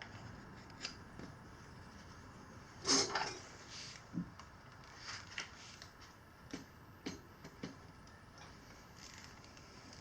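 Tire levers clicking and scraping against a wheel rim while a stiff knobby tire bead is worked onto it by hand, a few separate knocks with the loudest, longer scrape about three seconds in.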